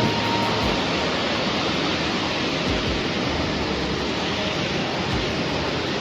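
Waterfall rushing steadily: a constant roar of falling water.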